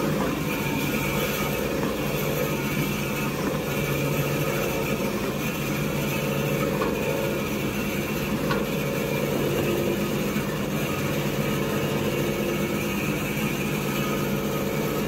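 Tissue-paper converting machinery, such as a log saw cutting rolls, running steadily with a constant hum and even mechanical noise.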